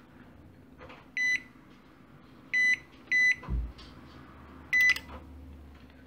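Electrolux MEC 41 microwave control board's buzzer giving four short, high beeps as its keypad buttons are pressed to set a cook time and start. A low thump follows the third beep.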